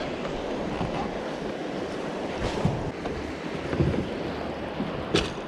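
Steady rush of river water with wind on the microphone, broken by a few light knocks about two and a half, four and five seconds in.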